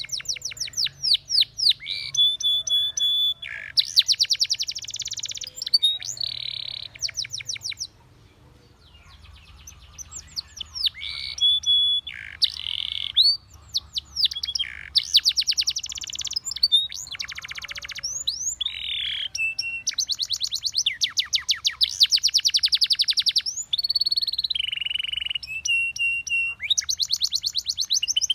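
Spanish Timbrado canary singing: fast rattling trills of rapidly repeated notes alternate with held whistled notes and quick sweeping notes, with a short pause about eight seconds in.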